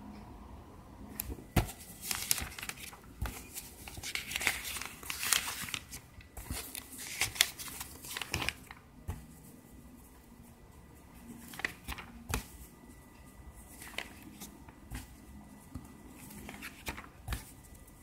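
Paper pages of an IKEA catalogue being turned and handled, rustling and crinkling densely for the first half, then a few scattered lighter crackles and taps.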